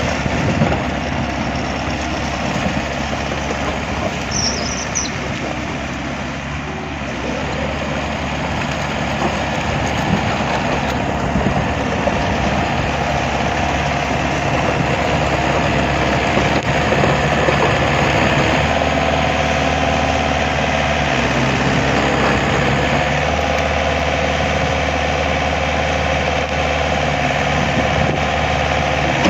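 A motor vehicle's engine running steadily, its pitch shifting slightly partway through.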